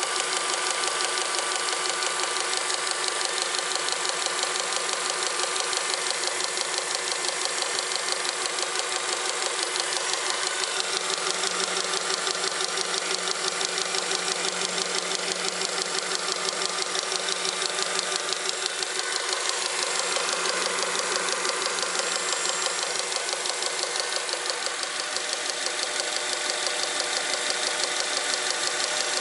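Honda Accord engine idling with a fast, even knocking from the engine bay. The knock comes from a worn, cracked ribbed accessory drive belt with a frayed spot in its ribs, beating on the pulleys.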